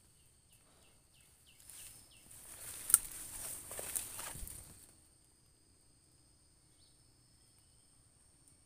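Footsteps pushing through forest undergrowth, leaves and stems rustling for about three seconds, with one sharp snap about three seconds in. Just before it, a bird gives a quick run of about six short falling chirps.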